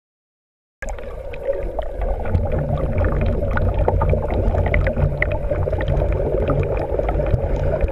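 Muffled underwater sound from a camera submerged in a swimming pool: swimmers churning the water, a low rumble dense with small bubbling pops. It cuts in abruptly about a second in, after silence.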